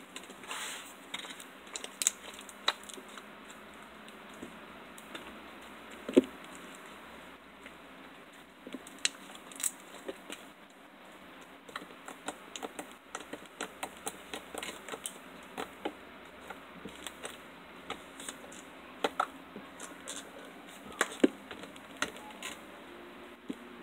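White hard-top slime being kneaded and pressed by fingers, giving off irregular sharp clicks and pops. The clicks come thicker in the second half, and a few louder pops stand out about six seconds in and again near the end.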